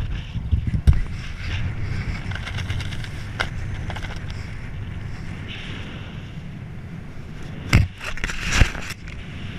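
Wind rushing over the camera microphone under an open parachute canopy, a steady low rumble, with short loud bumps about a second in and twice near the end.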